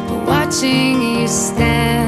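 Background music with plucked guitar notes, gentle and lullaby-like, with a short rising glide about a third of a second in.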